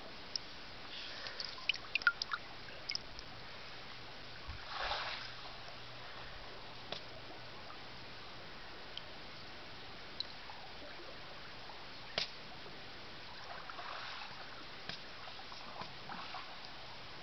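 Small water sounds in a shallow tidal pool: light splashes and drips, with scattered faint clicks in the first few seconds and a brief wash of water about five seconds in.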